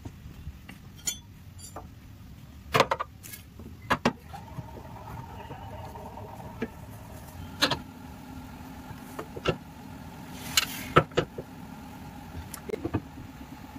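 Metal clinks and sharp knocks of a socket wrench on a long extension working bolts under a car, spaced out irregularly. Under them runs a steady mechanical hum, which takes on a steady tone about four seconds in.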